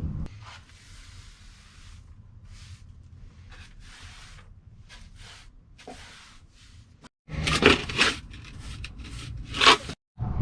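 Soft rustling and handling noises inside a small space, then a few louder scrapes and knocks near the end.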